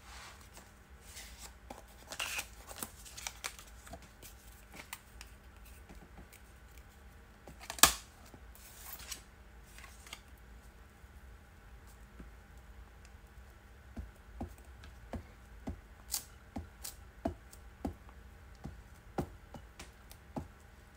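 A glue stick being rubbed over paper and paper pieces being handled on a cutting mat: scattered light taps and rustles, a run of fairly regular ticks in the second half, and one sharp click about eight seconds in.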